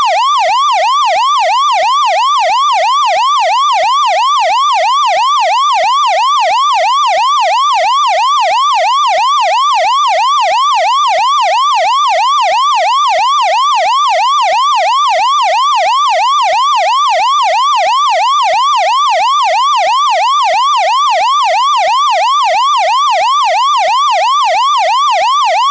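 Taiwanese fire engine's electronic siren in a fast wail, its pitch sweeping up and down about twice a second in an unbroken, even cycle.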